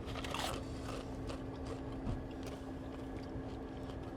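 Candied pecans being bitten and chewed: faint crunching and small clicks, over a steady low hum.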